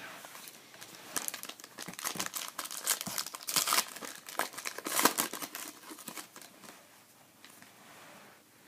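Foil wrapper of a trading-card pack crinkling and tearing as it is opened by hand, in dense crackles that thin out over the last couple of seconds.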